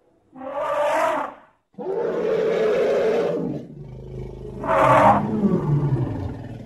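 Elephant calling three times. First comes a short call about a second long, then a longer rough roar, then a lower, pitched call that flares up loudly about five seconds in before fading out.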